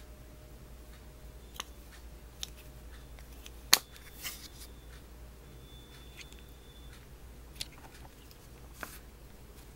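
Plastic flip-top cap of a toothpaste tube snapped shut with one sharp click about four seconds in, among a few fainter handling clicks and rustles of the plastic tube.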